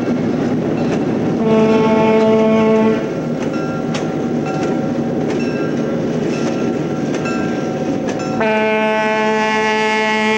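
Diesel switcher locomotive's horn sounding twice: a blast of about a second and a half, then a longer one starting about eight seconds in. Under both, the locomotive runs steadily with scattered clicks from the wheels.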